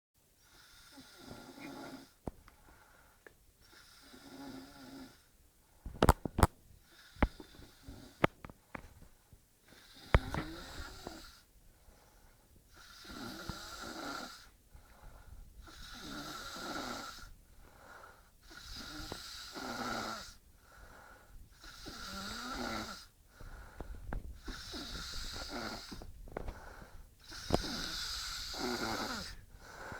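Loud snoring, one rattling, wheezy breath about every two to three seconds. A few sharp clicks break in about a fifth to a third of the way through.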